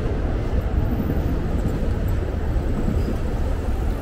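Steady city street noise: a low rumble of traffic, with no single sound standing out.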